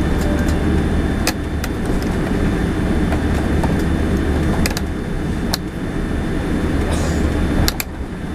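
Cabin noise of a Boeing 787-10 taxiing after landing: a steady low rumble, with a few sharp clicks and rattles scattered through it.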